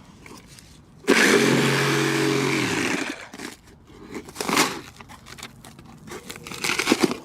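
A power tool's motor starts abruptly about a second in, runs at a steady pitch for about two seconds, then winds down. Shorter scraping or knocking noises follow.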